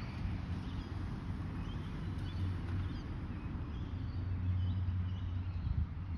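Outdoor ambience: a low, uneven rumble of wind on the microphone, with faint, scattered bird chirps.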